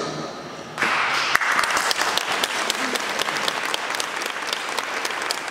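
Audience applauding, starting suddenly about a second in and continuing steadily.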